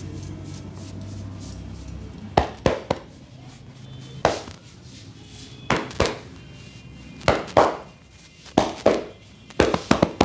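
A massage's sharp hand slaps on the body, struck in quick pairs about every second and a half after the first two seconds.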